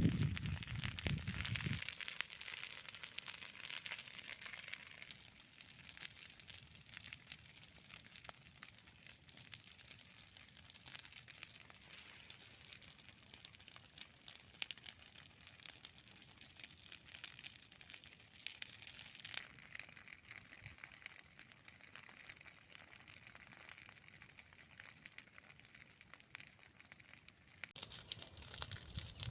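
Dry corn leaves, stalks and husks crackling and rustling as ears of corn are picked by hand, over a steady high hiss.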